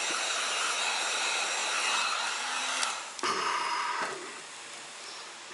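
Electric heat gun running, its fan blowing a steady rush of hot air over a methylene chloride solvent weld in polystyrene to speed the solvent's evaporation. There is a knock about three seconds in, and the sound drops to a fainter hiss about a second later.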